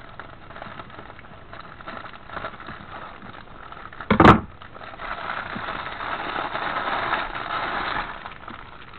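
Plastic postal mailer being handled: faint snipping and crinkling, a sharp knock about four seconds in, then a louder stretch of plastic rustling and crinkling as a cellophane-wrapped item is pulled out of the bag.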